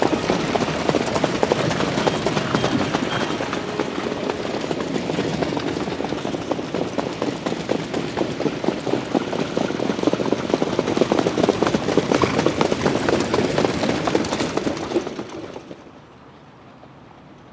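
Trotting horses' hooves and sulky wheels on the dirt track, a dense run of quick clatter, cutting off abruptly near the end to a faint background.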